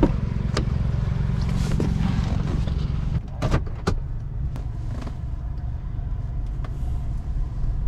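Pickup truck engine running steadily while driving, with two sharp clicks a little after three seconds in.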